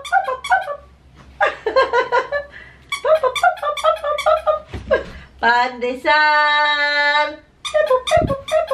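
A woman talking to a baby in a sing-song voice, and about halfway through a long, steady squeak lasting about a second and a half from the squeaker in a soft cloth baby book, rising briefly as it starts.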